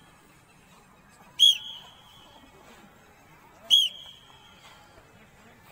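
A sports whistle blown in two short, sharp, high-pitched blasts a little over two seconds apart, part of a regular series timing the group's exercise repetitions.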